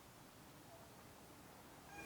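Near silence with a cat's faint meowing.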